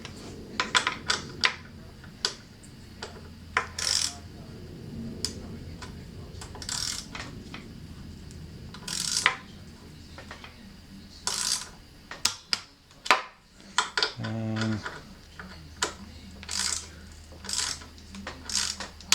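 Click-type torque wrench with a 5 mm hex socket ratcheting in short strokes, with light metal clicks, as the crank-arm pinch bolts are tightened alternately on a first pass at 8 Nm.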